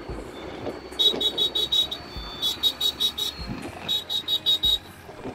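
High-pitched electronic beeping in three quick bursts, each about six rapid beeps, over the low hum and wind noise of a motorcycle ride.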